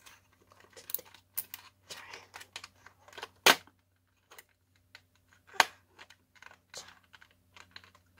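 Light plastic clicks and snaps as fingers work the battery compartment cover latch on the underside of a WPL D12 1:10 RC truck. The latch won't lock. There are two louder snaps, one near the middle and one about two seconds later.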